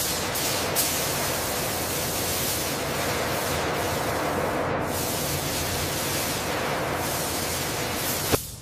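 Steady hiss of a paint spray gun spraying a coating, cutting off suddenly just before the end.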